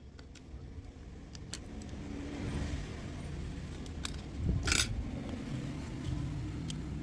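Steel tweezers clicking and scraping against a smartphone's frame and internal parts, with a low rumble underneath. One louder scrape comes about four and a half seconds in.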